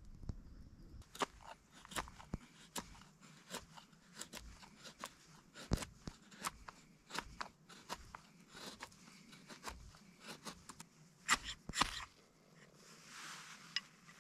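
Knife blade scraping a fatwood stick into fine shavings on a wooden board, in a run of short, irregular crunchy scrapes. Near the end comes one longer rasping scrape, a ferro rod being struck to throw sparks into the shavings and light them.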